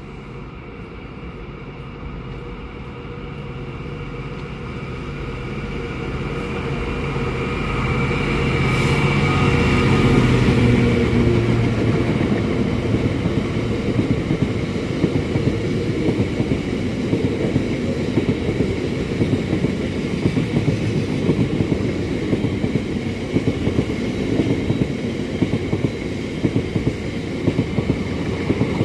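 A train approaching and passing on the main line. It grows louder to a peak about ten seconds in, then its wagons or coaches keep rolling past with a steady rumble and repeated clicks of wheels over rail joints.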